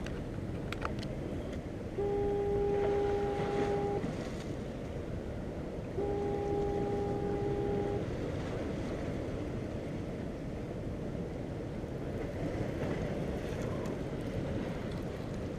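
A horn sounds two long, steady blasts of about two seconds each, a couple of seconds apart, over a constant wash of surf and wind.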